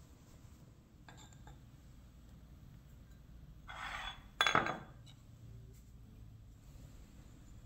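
A ceramic bowl set down on a countertop with one sharp clunk about halfway through, just after a short scrape.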